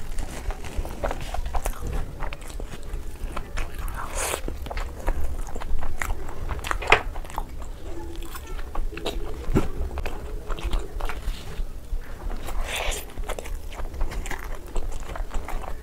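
Close-miked eating sounds: a person biting and chewing fried food and saucy chicken pieces, with many small irregular clicks.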